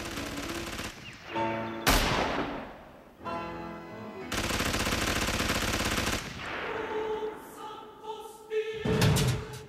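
Dramatic film score with choral voices mixed with sound effects: a sudden loud hit about two seconds in that dies away, then a loud rushing rattle for about two seconds as a lorry speeds past.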